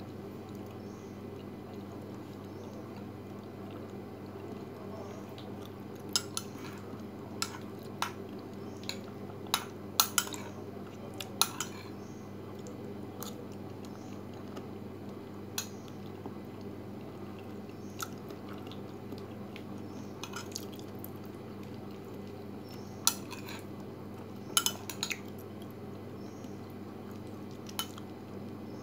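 A metal spoon tapping and scraping against a ceramic bowl in scattered sharp clinks, bunched together about a third of the way in and again near the end, over a steady low hum.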